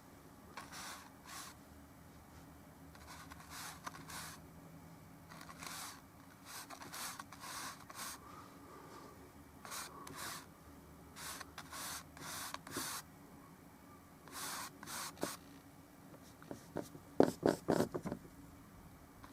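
Bristle brush scrubbing oil paint onto canvas in short scratchy strokes, some in quick pairs. Near the end comes a brief clatter of louder knocks.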